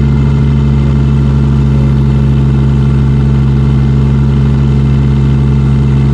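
Kubota D722 three-cylinder diesel engine of a 1.2-ton mini excavator running steadily under hydraulic load, as the boom pulls up against a buried anchor in a lifting-force test.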